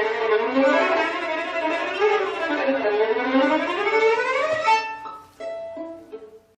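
A bowed string instrument playing swooping notes that slide up and down in pitch. Near the end it breaks into a few short notes that ring and die away before the sound stops.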